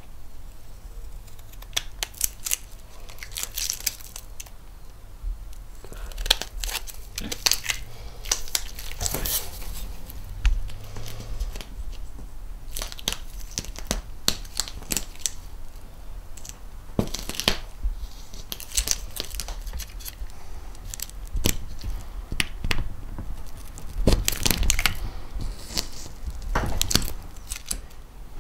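Used paper waxing strips crinkling and rustling as they are handled and cut with scissors, in irregular sharp crackles and snips.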